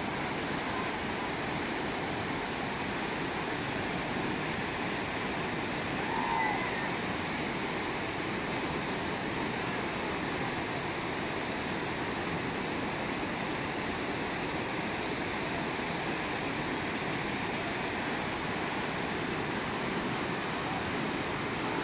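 Steady rush of whitewater rapids on the Reventazon River, an even roar of churning water.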